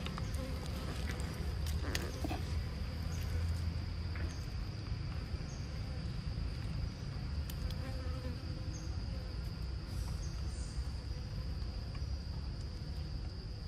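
Insects droning steadily on one high pitch, with faint short high chirps now and then and a low rumble underneath.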